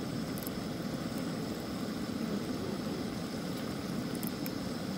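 Propane camp stove burner flame burning under a pan of cooking meat: a steady, low rushing noise, with a few faint ticks.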